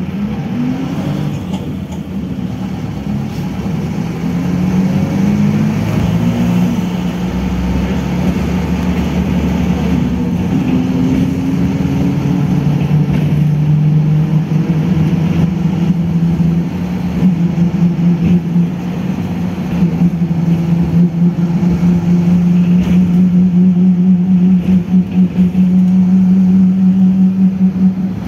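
Bohdan A201.10 city bus engine heard from inside the passenger cabin as the bus pulls away, the pitch rising in several climbs over the first few seconds, then settling into a steady engine and drivetrain drone that grows louder toward the end.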